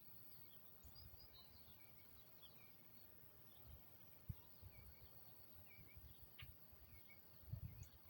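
Near silence: faint outdoor background with scattered faint, short high chirps and a small click about halfway through.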